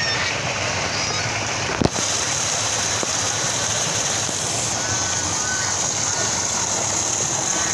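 Water gushing from a tube well's discharge pipe and splashing into a concrete tank: a steady rushing, with a single sharp knock about two seconds in.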